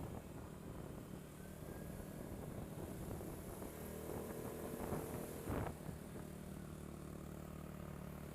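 ATV engine running steadily at low revs, with two short knocks a little after the middle.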